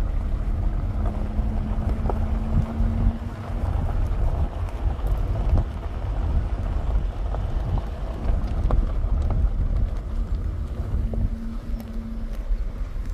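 Wind on the microphone, heard as an uneven low rumble. A faint steady hum sounds over it for the first few seconds and again near the end.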